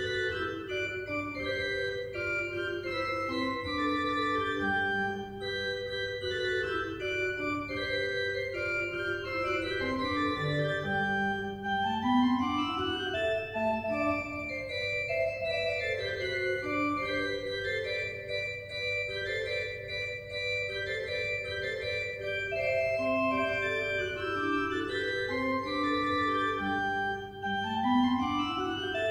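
Small pipe organ built by Josef Maier in 1987, playing a lively Baroque piece: quick melodic lines with rising scale runs about ten seconds in and again near the end, over a steady low drone.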